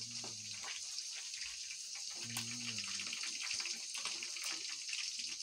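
Fish pieces deep-frying in hot oil in a steel pot: a steady sizzle with small crackles and pops.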